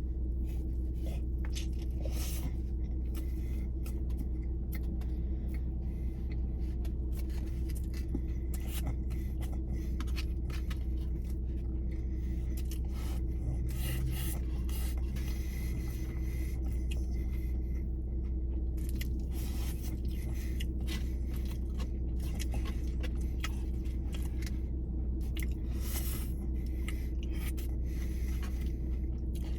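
A steady low hum, with light rustling, crinkling and scraping from the fast-food packaging being handled, in short scattered clicks.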